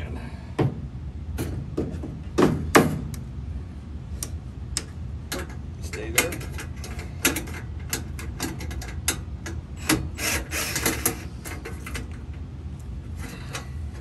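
Scattered clicks, knocks and small ticks of a cordless driver and socket working the screw of a thermal safety switch on a gas dryer's sheet-metal burner tube as the switch is taken off. The loudest knocks come about two and a half seconds in, with a dense run of small ticks in the second half.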